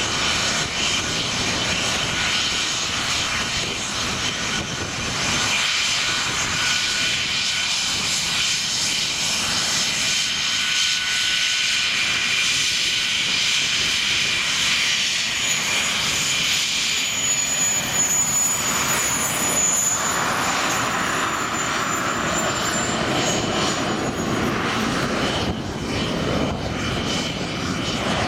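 An English Electric Lightning's twin Rolls-Royce Avon turbojets run loud and steady as the jet taxies out, with a high whine throughout. A shriller high whistle joins about halfway through and fades again near the end.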